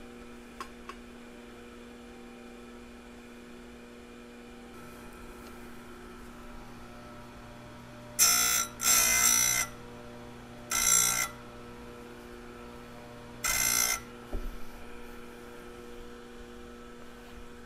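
Tecomec electric chain grinder running with a steady motor hum, its wheel brought down onto a chainsaw chain's cutter tooth four times, each a short harsh grinding burst: two about eight seconds in, one near eleven seconds and one near fourteen. The teeth are being ground back to clean metal after the chain struck a nail or other metal in a log.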